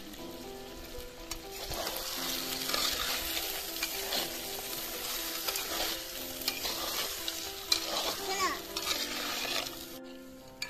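Mutton curry sizzling in a pot over a wood fire while a metal spatula stirs it and scrapes the pot. The sizzle with its scraping strokes starts about a second and a half in and drops away near the end.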